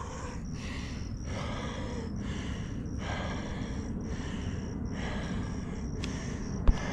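A hiker's heavy breathing, out of breath after a steep uphill climb, with about one breath a second. A single sharp knock near the end.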